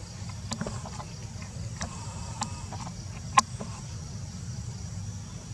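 Outdoor background: a steady low rumble and a faint steady high hiss, with scattered short clicks, the sharpest and loudest about three and a half seconds in.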